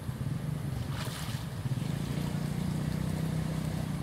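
A short splash of water about a second in, as a small monkey moves through the shallows, over a steady low rumble.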